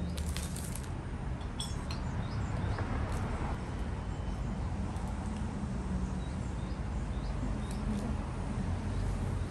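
Steady low background rumble with a few faint, short high chirps scattered through it.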